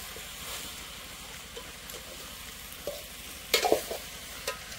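Vegetable curry sizzling in a metal pot over a wood fire, with a ladle stirring and clinking against the pot, loudest about three and a half seconds in. The curry is fully cooked.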